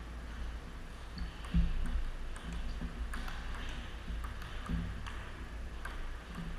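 Table tennis rally: the ball clicking off the paddles and the table in an uneven back-and-forth rhythm, with a few low thuds among the clicks.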